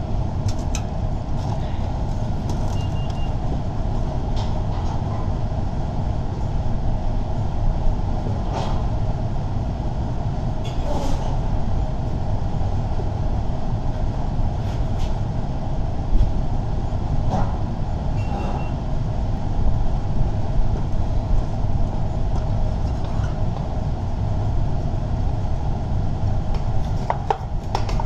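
A motor vehicle's engine running steadily in the background, with a few scattered sharp metallic clicks and knocks.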